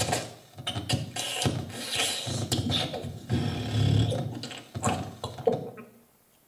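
Free-improvised extended-technique voice and trombone: a dense run of mouth clicks, hisses and breathy noises, with a low swell about four seconds in. It drops to near silence just before the end.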